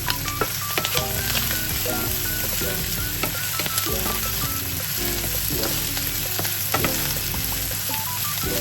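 Food sizzling steadily in an oiled frying pan while it is stirred and tossed, with scattered sharp taps of the utensil against the pan, over light background music.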